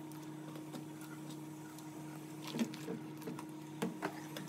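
A pot of seafood-boil broth with sausages bubbling on the stovetop: faint scattered pops and ticks over a steady low hum.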